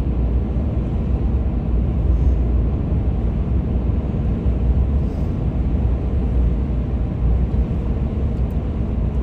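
Steady cabin noise of a moving vehicle on mud-terrain tyres: an even, low rumble of engine and tyres on the road.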